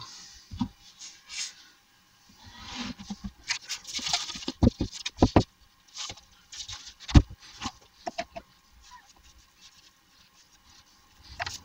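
MDF drawer parts and a glue bottle handled on a workbench: scattered rustles and scrapes with a few sharp knocks of board on board and bench, the loudest about seven seconds in, going quieter towards the end.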